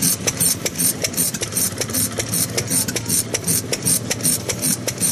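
Kubota 5S single-cylinder stationary engine, built in 1949, running at a steady speed with an even exhaust beat about five times a second.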